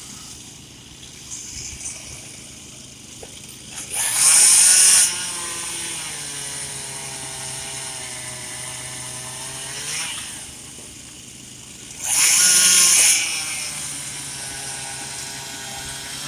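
Stihl 362 chainsaw revving hard in two loud bursts of about a second each, eight seconds apart, with a quieter small-engine drone between them whose pitch sags and then comes back up.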